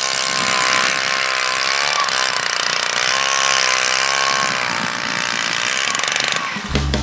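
Motorized ice auger's small engine running steadily while boring through lake ice, its pitch wavering slightly. Near the end it cuts off abruptly and guitar rock music starts.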